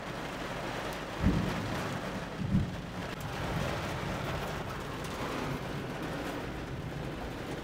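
Heavy wind-driven rain mixed with hail beating on a moving car, heard from inside the cabin as a steady hiss. Two short low thumps come about a second and two and a half seconds in.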